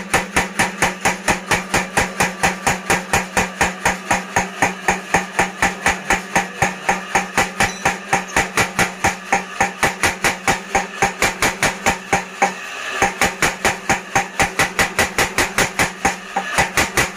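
Mechanical power hammer for blacksmithing pounding in a fast, even rhythm of about four to five blows a second, over a steady hum for most of the time. The blows pause briefly twice, about twelve seconds in and again near the end.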